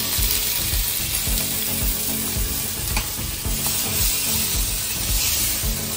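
Crinkle-cut potato fries deep-frying in a pot of hot oil, a steady sizzle, with a single light click about halfway through.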